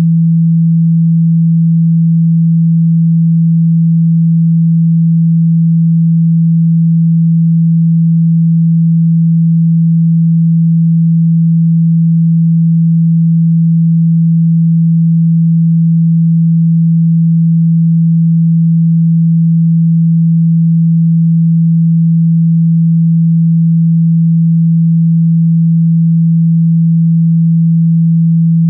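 A loud, steady 165 Hz pure sine-wave test tone, one low hum at a single pitch that never changes. It is a speaker-clearing tone, played loud to shake water and dust out of a phone's speaker.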